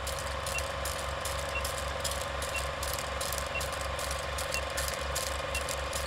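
Steady mechanical clicking and whirring, like a ratchet or gears turning, with fast low pulses several times a second and a short high beep about once a second.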